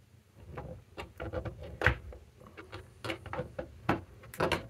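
Hard 3D-printed plastic parts of a fan fume-extractor housing knocking and clicking together as the funnel shroud is seated on the filter frame: a run of sharp taps and clicks, the loudest about two seconds in.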